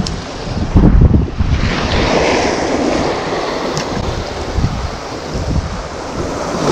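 Small sea waves washing and hissing over shore rocks, with wind buffeting the microphone, hardest about a second in.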